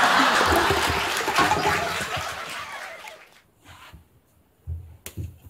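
Paper cups toppling and clattering as a cat breaks through a stacked wall of them: a loud rushing clatter of many small knocks that fades away over about three seconds, then a few light taps near the end.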